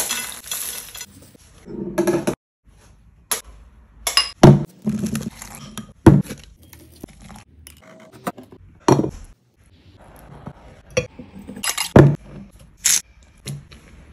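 A string of separate kitchen handling sounds: utensils and dishes clinking and knocking, with stretches of scraping between them. There are a dozen or so sharp knocks spread through the span.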